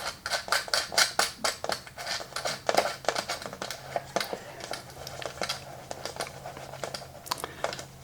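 Quick small clicks and taps of a clock movement and its mounting nut being handled and fitted onto the clock, thickest in the first few seconds and thinning out later. A faint low steady hum comes in a couple of seconds in.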